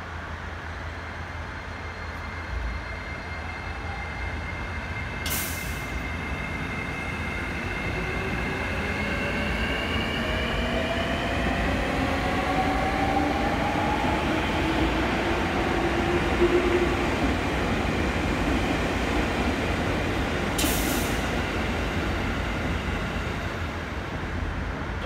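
JR East E653 series electric train pulling away and accelerating past, its motor whine rising in pitch in several tones while the rumble of the cars grows louder toward the middle and eases near the end. Two short hisses about fifteen seconds apart.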